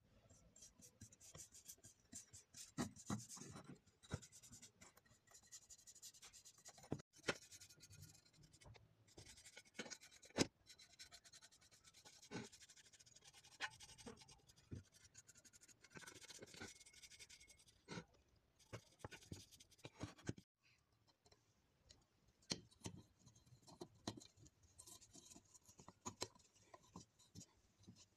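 Stiff bristle brush scrubbing grime off the metal parts of a disassembled air rifle: a quiet, scratchy rasping with frequent sharp clicks and knocks of metal parts against the bench.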